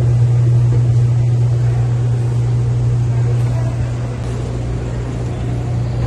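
Refrigeration unit of an old reach-in beverage cooler running after repair: a steady, loud low hum from the compressor and condenser fan as the unit cools and frosts up.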